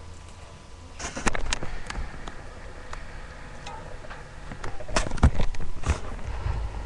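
Handling noise from a webcam being picked up and moved: irregular knocks and clicks with rustling, in two clusters, about a second in and around five to six seconds in.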